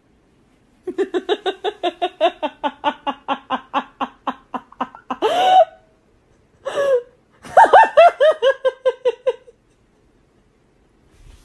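A person laughing hard in a rapid run of 'ha' pulses, about five a second, for about four seconds. A few louder bursts follow, then a second bout of laughter that falls in pitch.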